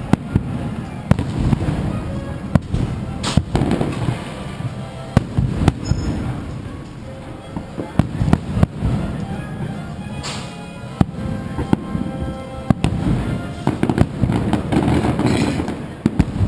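Fireworks show: frequent sharp bangs of shells bursting at irregular intervals, with a few longer hissing bursts, over faint music.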